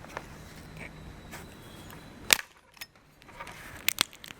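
Sharp taps and clicks of an egg being cracked and its shell handled over a mixing bowl. The loudest tap comes a little past halfway, with a few lighter clicks near the end. A low steady hum runs underneath and stops abruptly with the loud tap.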